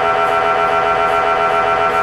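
MRI scanner running a scan sequence: a loud, steady electronic buzz of several stacked tones from its gradient coils.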